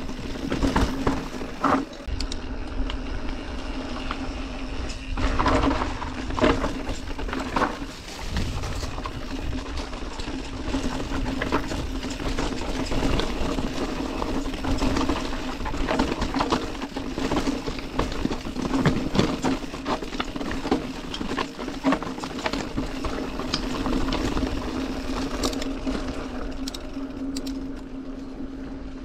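Orbea Occam TR mountain bike rolling fast down a dirt singletrack. The tyres run over dirt and stones, the bike knocks and rattles over frequent bumps, and a steady hum sits under it all.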